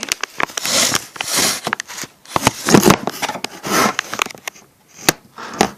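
A gallon plastic jug of glue being handled and moved about: a run of knocks, clicks and rustling, busiest over the first four seconds.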